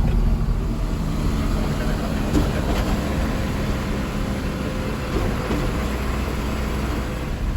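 Unimog truck's diesel engine running steadily while driving, a continuous low drone with road rumble.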